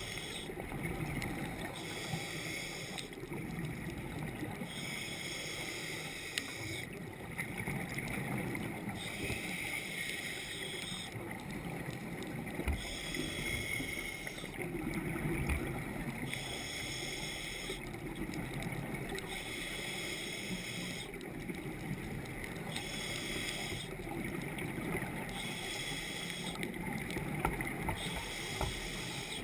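Muffled underwater noise heard through a camera housing: a steady low rumble with a hiss that comes and goes every second or two.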